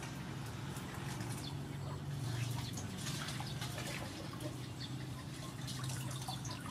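Water splashing and dripping as live river prawns are washed by hand in a basin of water and lifted out, with a steady low hum underneath.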